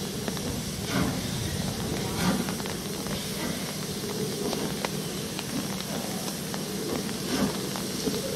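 Steam locomotives hissing steadily as they stand and move slowly around the depot, with a low steady hum underneath and a few louder soft puffs of exhaust.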